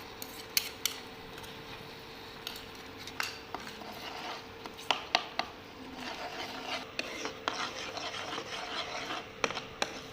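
Metal spoon stirring and scraping a thick onion-tomato masala paste in a pan, with sharp taps of the spoon against the pan now and then. A steady faint hum runs underneath.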